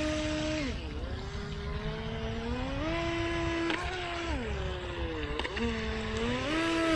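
Feilun FT007 RC speed boat's small brushed electric motor whining, its pitch dropping and rising twice as the throttle is eased off and opened again. The battery is running low.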